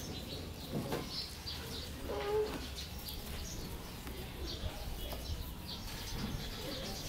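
Small birds chirping sparsely in the background over a low steady hum, with one short, low pitched call a little over two seconds in.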